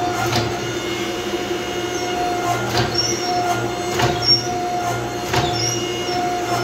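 Power hammer running with a steady hum and a low pulsing beat, landing a few separate heavy blows, a second or more apart, on a red-hot axe head as the bit is forged.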